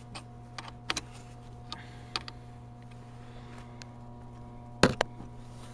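Light clicks and taps of hands and a wrench working a battery cable into place, with one louder clack near the end, over a steady low electrical hum.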